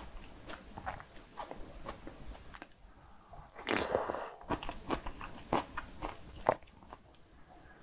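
Close-miked eating sounds of a mouthful of Korean bibimbap and kimchi soft-tofu stew: wet chewing with small crisp crackles, a longer noisy mouthful about four seconds in, and a couple of sharp clicks near the end.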